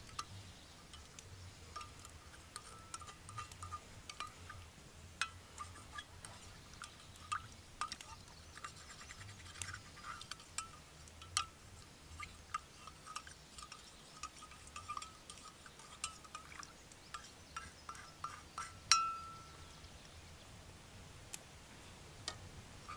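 Plastic spoon stirring coffee in an enamel steel camp mug, with many small clinks and taps against the mug over a faint ringing. One louder tap near the end leaves the mug ringing briefly.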